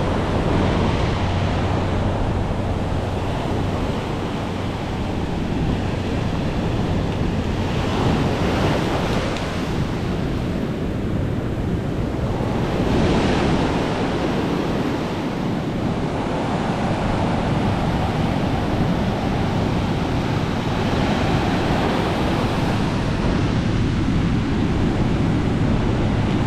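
Heavy storm surf breaking on the beach, a continuous wash that swells with each breaking wave, driven by a passing hurricane. Wind buffets the microphone throughout with a low rumble.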